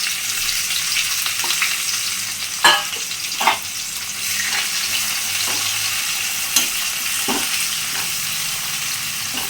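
Onion frying in hot white oil in a kadai, a steady sizzle, with a spatula scraping and knocking the pan a few times as it is stirred.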